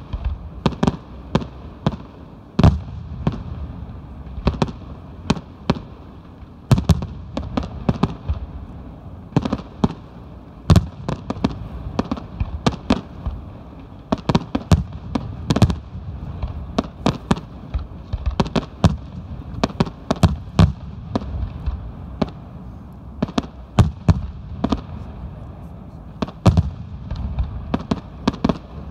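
Aerial fireworks bursting one after another: an irregular run of sharp bangs, at times several a second, over a steady low rumble.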